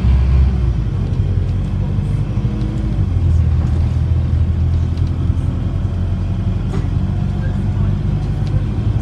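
Diesel engine of an Enviro400 double-decker bus (converted from hybrid to diesel-only drive) running under way, heard inside the upper deck. Its note dips just after the start, then settles into a steady low drone.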